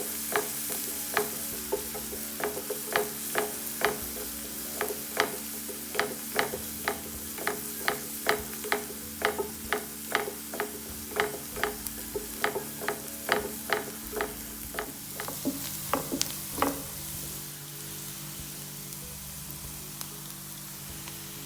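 Spatula knocking and scraping against a pan while a thoran is stir-fried, about two to three strokes a second over a light sizzle. The strokes stop about three-quarters of the way through, leaving the sizzle.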